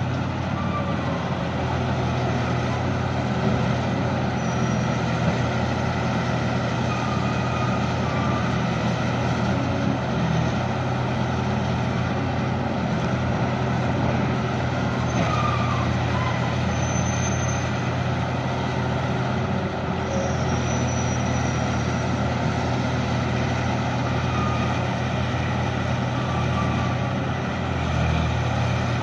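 An excavator's heavy diesel engine runs steadily, with a few brief high squeals along the way.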